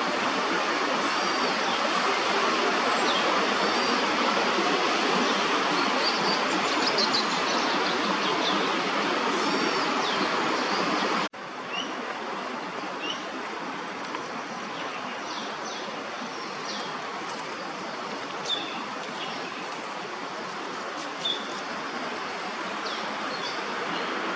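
Steady rushing noise of strong wind through the park's trees, with small birds chirping in short high calls throughout. About eleven seconds in the sound breaks off for an instant and comes back a little quieter.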